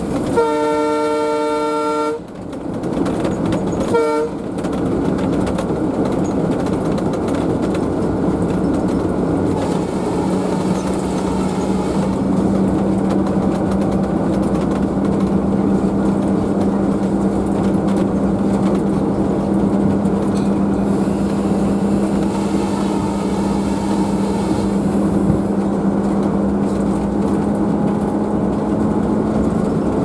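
Diesel locomotive horn blown in a blast of about two seconds, then a short toot about four seconds in, heard inside the cab of an Alco WDM-3D. Between and after them the locomotive's Alco 251 V16 diesel engine runs steadily over the rumble of the wheels, with a steady drone coming in about ten seconds in that rises slightly toward the end.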